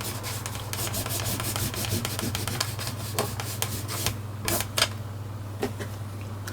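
Cloth damp with spray cleaner rubbing over a plastic remote-control case, wiping off grime. Quick back-and-forth strokes for the first few seconds, then slower, separate wipes.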